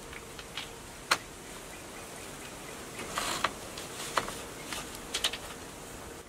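Split bamboo slats knocking and clicking against each other and against a wooden hoop, with the rustle of cord being pulled, as the slats are lashed together by hand. The sharpest knock comes about a second in, a rustly cluster near the middle, and a few lighter clicks after.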